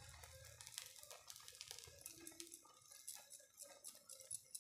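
Near silence, with faint, scattered light ticks and patter as chopped vegetables are sprinkled by hand onto a batter pancake on a tawa.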